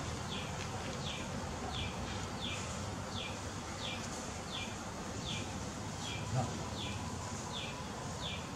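A small animal's high chirp, a short falling note repeated evenly about three times every two seconds, over a steady low outdoor background. A soft thump sounds once, a little after six seconds in.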